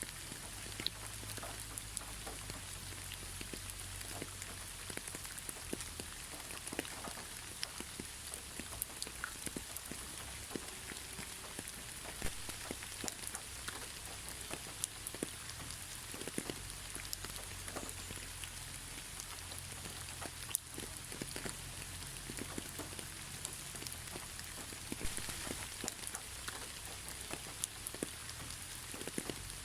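Steady, gentle rain falling on surfaces, with many separate drops ticking and pattering over a continuous hiss and no thunder.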